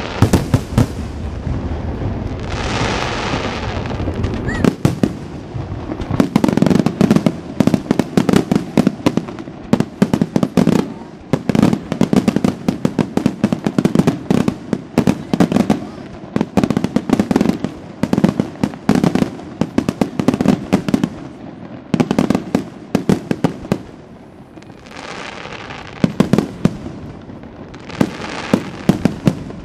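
Aerial fireworks display: a rapid, continuous barrage of shell bursts and launch reports, many sharp bangs a second through most of the stretch. Stretches of hiss and crackle come about two seconds in and again near the end.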